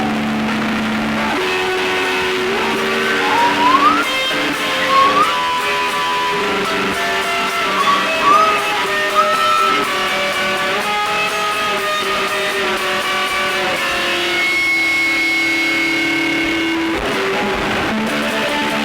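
Dark ambient drone music: layered sustained tones that change pitch every few seconds, with several short upward-sliding notes in the first half.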